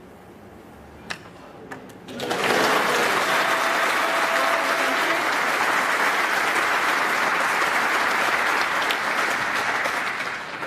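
Snooker audience applauding a century break. A couple of sharp snooker-ball clicks come first over a quiet hall, then the clapping swells about two seconds in, holds steady and eases near the end.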